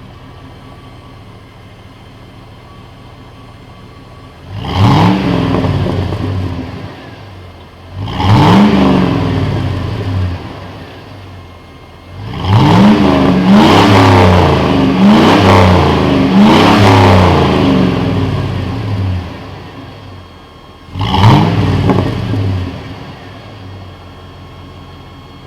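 Chevy 5.3L LM7 V8 exhaust through a Cherry Bomb muffler, idling with a low rumble and revved in sharp blips that rise and fall back to idle: single blips about four and eight seconds in, a run of about four quick revs in the middle, and one more near the end.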